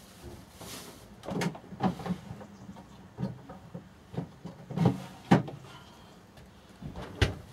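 A series of short knocks and clunks, about seven of them, as kitchen things are handled and put down, the loudest about two-thirds of the way through.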